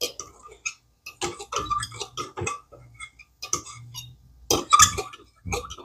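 Metal fork stirring a cornstarch slurry in a glass measuring cup, clinking against the glass in quick, irregular clicks.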